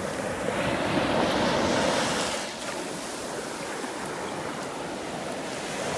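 Small sea waves washing up a sandy shore, the foam fizzing. The wash is louder for the first couple of seconds, then eases off.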